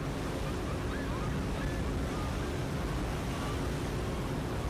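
Steady rush of wind and open sea with a low hum underneath, and a few faint short high calls.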